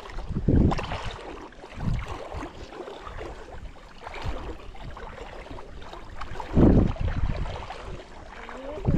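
Wind buffeting the microphone in irregular gusts, loudest about half a second in and again near seven seconds.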